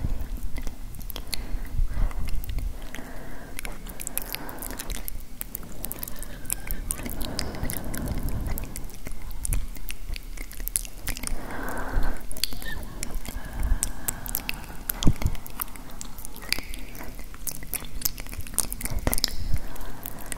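Close, wet ASMR mouth sounds into a handheld recorder's microphones: a steady scatter of sharp clicks and smacks, with a few soft breathy stretches.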